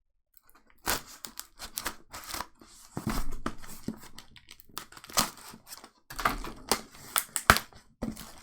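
Scissors snipping through a shipping package, with the packing tearing and crinkling: a quick run of sharp snips and rustles with a short pause about six seconds in.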